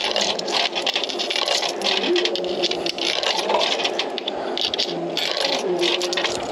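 Coins clinking and rattling through a vending machine's coin mechanism as the purchase is paid for, with a faint machine hum twice.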